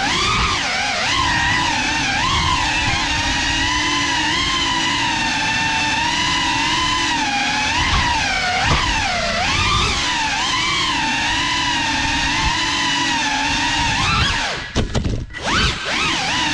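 GEPRC Cinelog 35 3.5-inch ducted cinewhoop's motors and propellers whining, the pitch rising and falling constantly with the throttle. Near the end the whine cuts out and returns a few times in quick succession, as the throttle is chopped and punched again.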